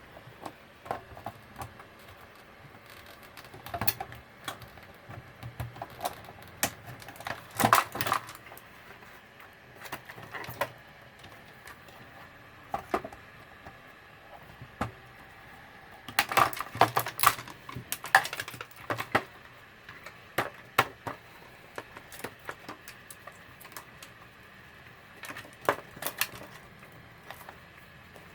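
Small plastic and metal parts of an old label machine being handled and pulled apart: irregular clicks, taps and rattles, coming in clusters with the busiest clatter about eight seconds in and again just past halfway.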